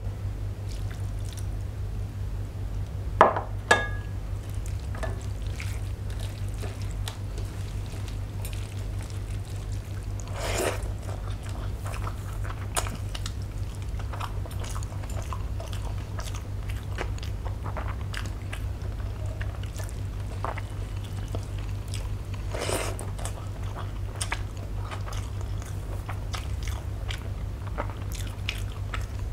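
Close-up eating sounds: rice and milk mixed by hand on a steel plate and eaten with the fingers, with soft wet mixing and chewing noises and scattered small clicks. Two sharp knocks come about three seconds in, over a steady low hum.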